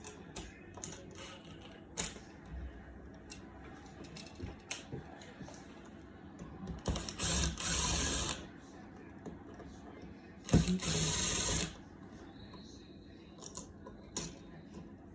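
Clicks, knocks and rattles of tools and a wall switch being handled during switch replacement, with two loud bursts of rushing noise, each about a second long, about seven and ten and a half seconds in.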